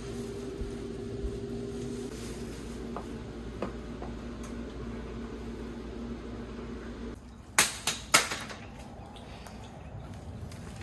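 A steady appliance hum in a camper's small cabin, which drops away about seven seconds in. Then come two loud knocks about half a second apart: footsteps on a step ladder down out of the camper.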